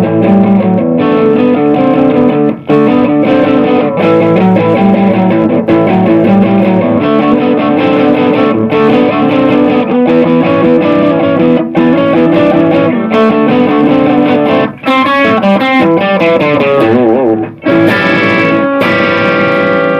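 Electric guitar played through the Lekato Tank G Black's Plexi preamp model, a Marshall Plexi amp simulation with an overdriven tone. It plays chord riffs, then notes with wide vibrato a little before the end, and closes on a chord left ringing.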